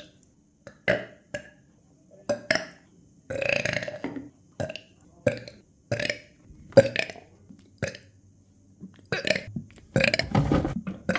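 A person burping over and over: a rapid string of short burps, with longer drawn-out ones about three seconds in and again near the end.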